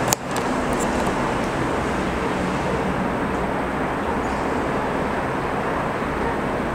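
Steady background rumble and hiss, with a single sharp click just after the start and a couple of faint ticks soon after.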